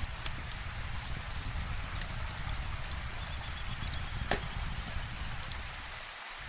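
Wood fire crackling with scattered sharp pops, one louder pop about four seconds in, over a steady hiss of falling rain.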